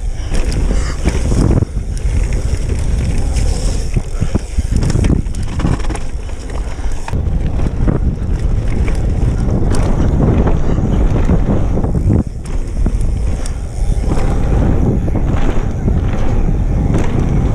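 Mountain bike riding down a dirt trail: steady wind rush on the microphone over the rumble of tyres on dirt and gravel, with occasional knocks and rattles as the bike takes bumps.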